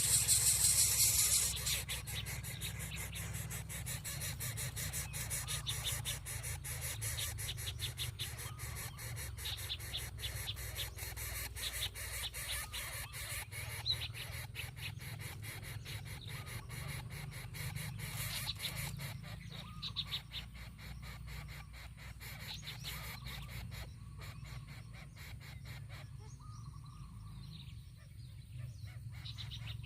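Short bird calls and chirps over a steady low rumble, louder during the first second or two.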